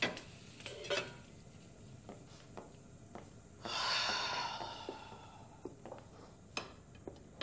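Kitchen work sounds: scattered clinks and knocks of a utensil against pots and dishes, and a knife on a cutting board. A longer rushing hiss comes up about halfway through and fades away.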